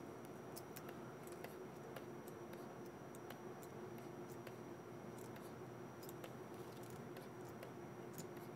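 Scattered faint clicks of a computer mouse and keyboard over a steady room hum with a faint held tone.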